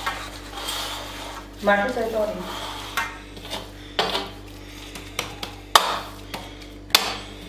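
Steel spatula stirring and scraping a thick, sticky ghee-and-jaggery mixture in a steel plate, with sharp metal-on-metal clinks about once a second in the second half, the loudest two near the end.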